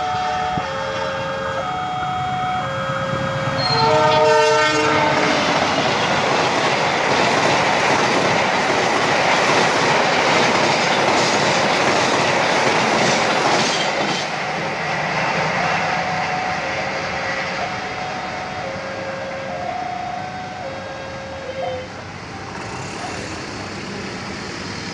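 A level-crossing warning alarm alternates between two tones about once a second. About four seconds in, a passenger train sounds a short horn blast and passes close by, its wheels rolling and clattering loudly for about ten seconds. The rumble then fades while the crossing alarm keeps alternating until near the end.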